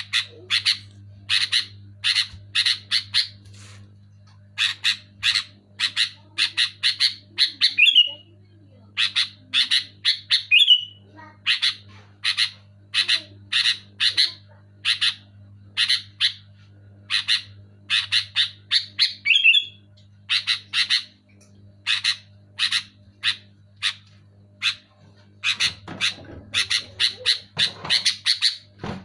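Sooty-headed bulbul (kutilang) calling loudly and energetically: quick runs of short, sharp notes broken by short pauses, with an occasional slurred note. A steady low hum lies beneath.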